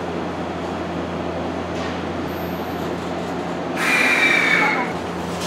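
Train at a station platform: a steady low hum with a noisy rumble, and a brief high metallic squeal, slightly falling in pitch, about four seconds in, typical of train wheels or brakes.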